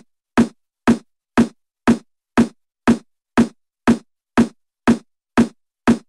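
Intro music: a lone electronic drum beat struck steadily about twice a second, with silence between the hits.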